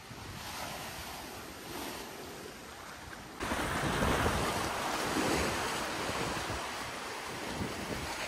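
Small waves breaking and washing up a sandy shore, with wind buffeting the microphone; the sound gets suddenly louder a little over three seconds in.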